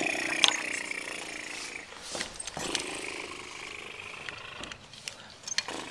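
Handling noise on a small handheld camcorder as it is fumbled and grabbed: hands rubbing against the camera and microphone, with a sharp knock at the start and a few scattered clicks.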